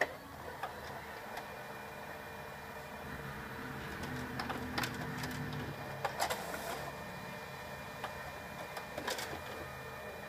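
HP Color LaserJet Pro MFP M176n colour laser printer running a print job: a steady mechanical hum, with short clicks and rattles from the paper-handling mechanism around the middle and again a little before the end.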